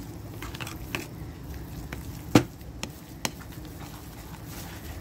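A few light taps, then one sharp click a bit over two seconds in and two fainter clicks soon after, over a steady low background hum.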